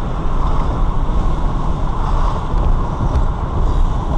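Steady engine and road noise inside the cabin of a moving car.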